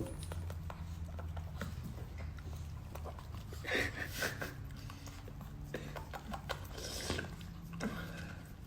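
Small dogs moving about, with faint pattering and scattered small noises over a steady low hum.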